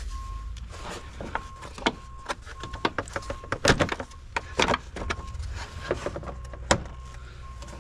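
Hard plastic engine-bay covers being handled and pressed back into place around a car battery: irregular clicks and knocks of plastic on plastic, the sharpest about halfway through and again near the end.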